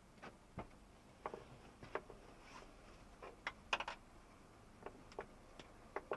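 Faint, irregular clicks and ticks inside a moving car's cabin, over a low background of road noise.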